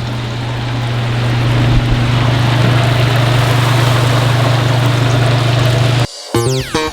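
Chicken wings deep-frying in a commercial fryer, the hot oil sizzling steadily over a constant low hum of kitchen equipment. About six seconds in it cuts off abruptly and guitar music begins.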